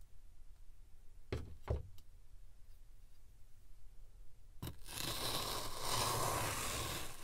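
Metal scoop working in kinetic sand: two short taps about a second and a half in and a third a little past the middle, then a steady scraping hiss for the last two seconds as the scoop cuts and turns through the sand.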